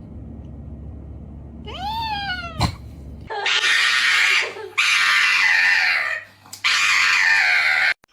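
A cat meows once, rising then falling in pitch, then yowls loudly three times in long, harsh, drawn-out caterwauls.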